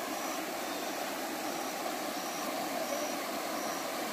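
Steady rush of flowing river water, with a faint short high chirp repeating a little more than once a second.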